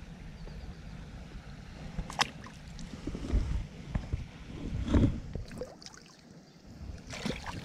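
Wind rumbling on the microphone, with a few brief knocks and rustles, the loudest about five seconds in.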